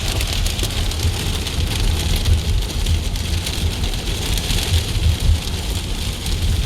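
Heavy rain, with some small hail, pelting a car's roof and windshield, heard from inside the car as a dense hiss of fine ticks over the car's low rumble.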